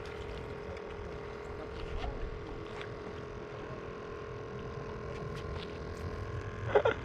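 A boat's motor humming steadily, with a low rumble under a steady tone. A few faint clicks, and a brief louder sound near the end.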